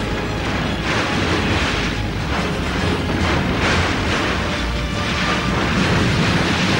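Cartoon sound effects of rock crashing apart and a river rushing through, in repeated surges over background music.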